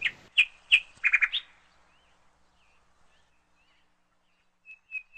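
Birds calling: several sharp chirps in the first second and a half, then faint short chirps, then near the end a run of short whistled notes at one pitch, about four a second.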